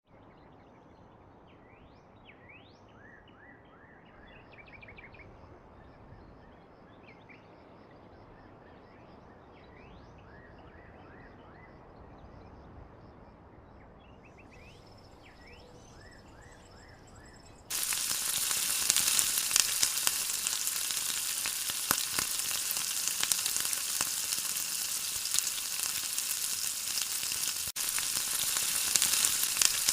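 Faint bird chirps over a quiet background, then, about two-thirds of the way in, a sudden loud sizzle of food frying in hot oil that carries on steadily.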